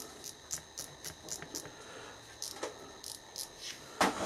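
Ratchet stop on a 0–1 inch micrometer's thimble clicking as the spindle closes on a 1 inch standard: a run of light clicks about four a second, pausing briefly about two seconds in. A louder knock of the instrument being handled comes near the end.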